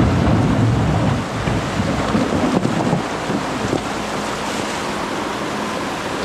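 Menzi Muck spider excavator working: a dense low rumble of engine and machine noise, heavier for the first three seconds, then settling to a steadier engine hum.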